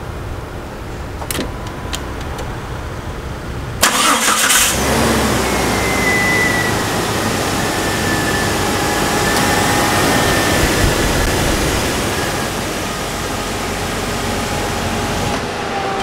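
Two light clicks, then about four seconds in a Jeep Cherokee's engine starts with a sudden burst of noise. It settles into steady running with the cooling fan going and a faint whine over it.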